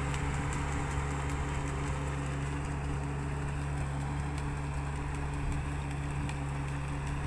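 Rice transplanter's engine running steadily with an even hum as the machine drives through the flooded paddy, planting seedlings.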